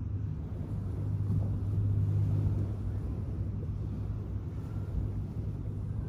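Low, steady engine hum from a distant motor, swelling a little about a second in and easing off by about three seconds, over the soft wash of small waves on the shore.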